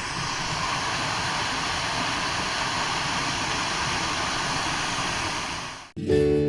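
Steady rush of flowing creek water that fades out about six seconds in, followed by strummed acoustic guitar music.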